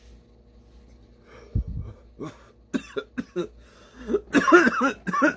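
A man coughing after inhaling from a cannabis vape pen: one cough about one and a half seconds in, then a run of short coughs that grows loudest near the end.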